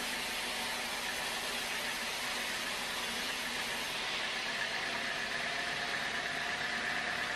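Sawmill machinery running steadily, a continuous machine noise; a steady high whine comes in about halfway through.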